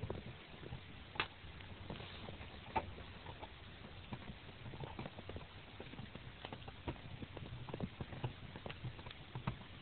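A dog gnawing on a large caribou leg bone: irregular faint clicks and knocks of teeth on bone.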